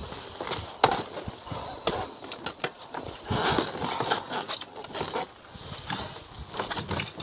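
Wooden knocks, bangs and scraping as a fridge freezer is forced through a doorway against the door and its frame, with one sharp bang about a second in, heard through a doorbell camera's microphone.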